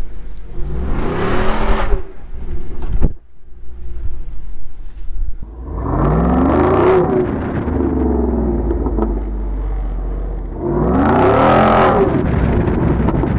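Jeep Wrangler Rubicon 392's 6.4-litre HEMI V8 accelerating hard three times, its note rising in pitch with each burst. It falls away briefly off the throttle about three seconds in.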